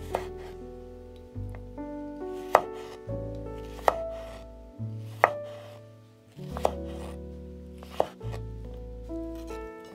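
Kitchen knife chopping food on a cutting board: six single, sharp strokes, about one every second and a half, over soft piano music.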